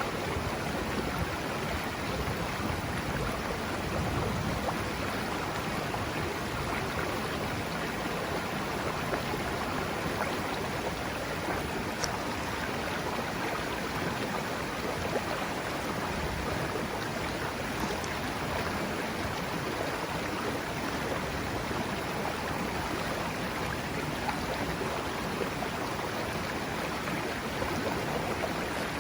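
Mountain river flowing and rushing over rocks, a steady even rush of water.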